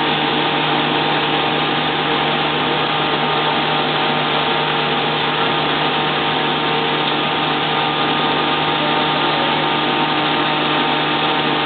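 Claas Crop Tiger 30 Terra Trac combine harvester running steadily while unloading its grain, with engine and unloading auger making a loud, even hum with several steady whining tones and no change in pitch.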